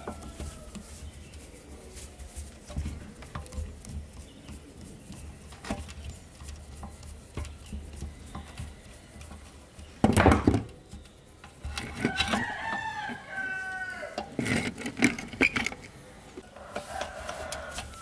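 Small metal clicks and scrapes of screwdriver work on an old fan's motor and switch housing, with a loud knock about ten seconds in. A rooster crows once in the background, a single call of about two seconds starting about twelve seconds in.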